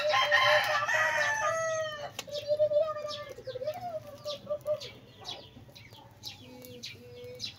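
Rooster crowing: a loud, long crow held for about two seconds before it trails off, followed by a weaker wavering call. Short high chirps or ticks are scattered around it.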